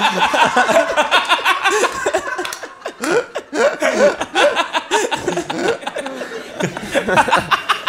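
Several people laughing together at a joke, with many overlapping chuckles. The laughter eases about two and a half seconds in and swells again a second later.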